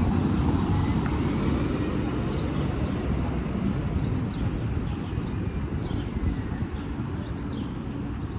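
Busy city street ambience: a steady low traffic rumble, with faint short high chirps now and then.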